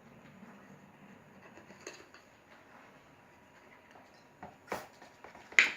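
Handling noise from slime-making containers and utensils: a few short clicks and knocks, more frequent about four and a half seconds in, the loudest just before the end.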